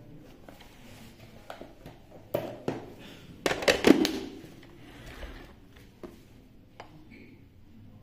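Plastic handling noises and small clicks on a Lefant F1 robot vacuum, then a loud clatter of hard plastic about three and a half seconds in as its top cover is set back over the dust-bin bay.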